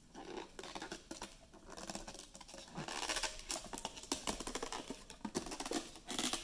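A cardboard sleeve sliding and scraping off a metal trading-card tin, with rustling and small taps from handling. The scraping grows louder about halfway through and again near the end.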